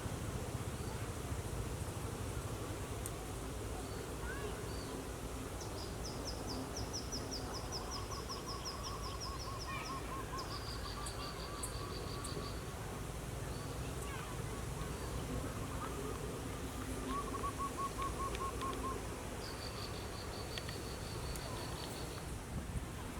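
Outdoor countryside ambience: birds calling in rapid, repeated high trills, with softer pulsed calls lower down, over a steady low rumble.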